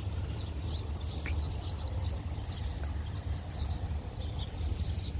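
Many small birds chirping and twittering in quick short notes, over a steady low rumble.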